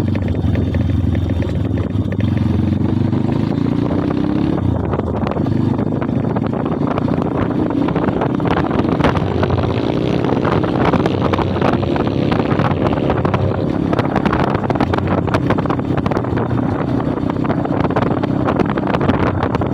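Kayo 140cc pit bike's single-cylinder four-stroke engine running under way, its pitch climbing a few times as it speeds up, with wind buffeting the microphone.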